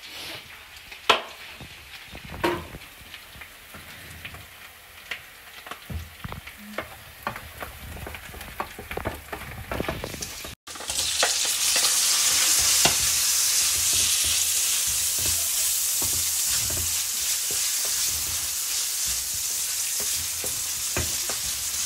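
Chopped onion frying in oil in a nonstick pan, stirred with a wooden spatula that scrapes and clicks against the pan. About halfway through, after a brief dropout, the sizzle becomes much louder and steady as onion and chopped tomato fry together.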